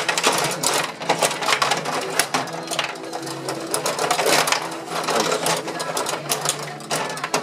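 Gretzky rod table hockey game in play: fast, irregular clattering and clicking as the plastic players are spun and slid on their metal rods and the puck is knocked about the rink.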